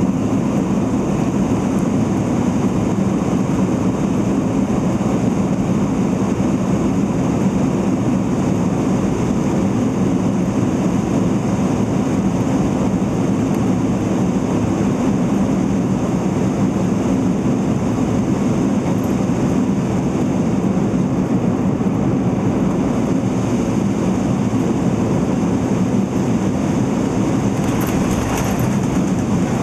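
Steady cabin noise inside a Boeing 747-8 Intercontinental on final approach: a low, even rumble of airflow and engines.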